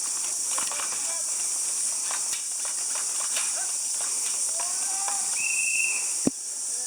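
A steady high-pitched insect chorus hissing outdoors, with scattered faint clicks and one sharp knock about six seconds in.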